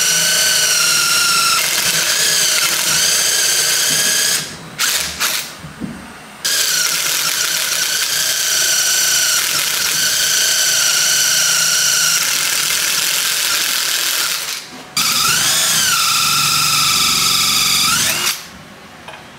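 Cordless drill boring into a thick block of wood with a long thin bit, its motor whining steadily under load. It stops after about four seconds and gives a few short blips. It then runs steadily for about eight seconds, and in a last run of about three seconds its pitch rises and falls as the trigger is eased, before it cuts off.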